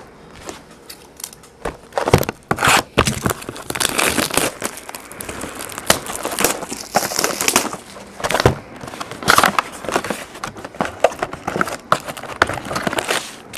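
Plastic shrink wrap being torn and peeled off a trading-card hobby box, a dense run of crinkling and crackling. Near the end the cardboard box and its foil packs are handled.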